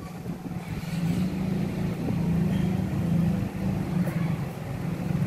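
A steady low mechanical hum, like a motor or engine running, that grows louder about a second in.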